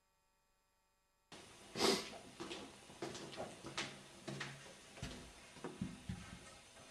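Near silence for about a second, then footsteps and a door being handled in a quiet room: one sharp knock, then a string of softer knocks and clicks roughly every half second.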